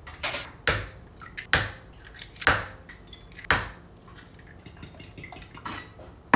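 Kitchen clatter: dishes set down on a granite counter and eggs cracked into a bowl, a series of sharp knocks and clinks about once a second.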